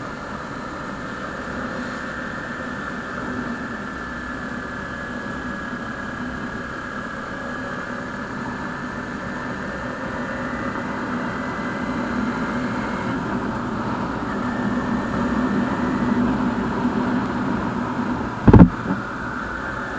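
Motorcycle engine running steadily while riding, with wind and road noise on the microphone, the engine pitch slowly climbing through the middle. A brief loud low thump near the end.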